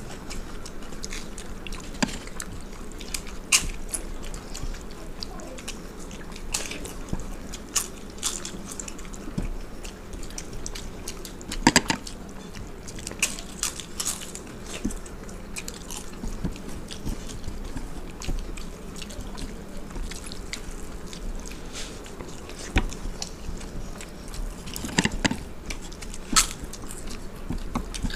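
Close-up eating sounds: chewing and crisp bites into fried papad, irregular sharp crunches with a few louder ones about twelve seconds in and near the end, over wet squelching as fingers mix water-soaked panta bhat rice.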